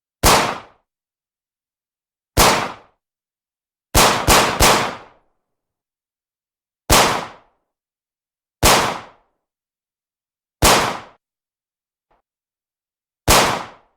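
Beretta 92F 9 mm semi-automatic pistol firing nine shots, each with a short reverberant tail. The shots are mostly single and spaced about two seconds apart, with a quick triple shot about four seconds in.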